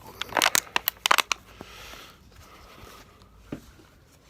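Crinkling and rustling of a paper door-hanger flyer being handled one-handed: a quick run of sharp crackles in the first second and a half, then a short rustle.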